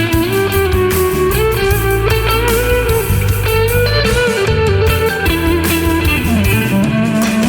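Instrumental soul-blues jazz groove: a bluesy electric guitar lead with bending notes over a steady bass line and drums.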